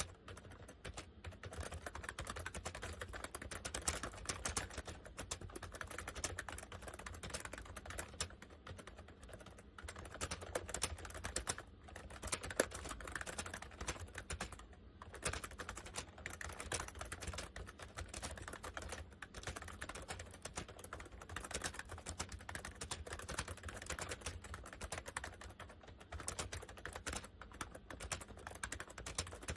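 Fast continuous typing on a Honeywell 101WN/WT membrane keyboard with PBT keycaps, a dense run of key clicks with a couple of brief pauses, over a faint steady low hum.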